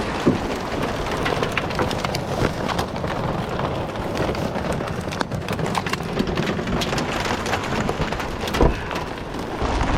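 Steady rain falling, with many small sharp ticks of drops striking hard surfaces and a couple of louder knocks, one near the start and one near the end.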